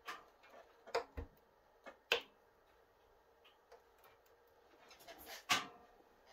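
Wood fire burning in a closed wood stove, popping and cracking: a handful of sharp pops, the loudest a little after two seconds and again near the end.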